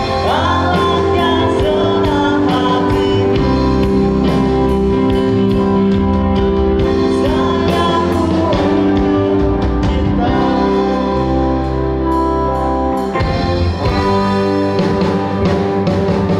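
A live rock band playing electric guitars and a drum kit, with a singing voice over a steady drum beat. The sound carries the reverberation of a large hall.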